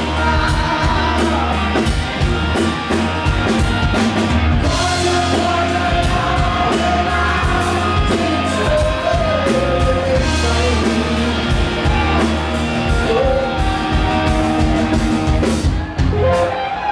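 Live rock band playing: a male lead singer sings long held notes over electric guitars, bass guitar and a drum kit, with steady drum hits.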